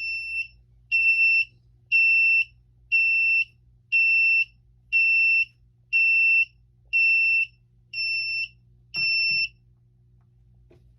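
Fire alarm piezo sounder beeping once a second in a steady pulse of high, single-tone beeps, each about half a second long, signalling a supervisory condition. The beeping stops near the end.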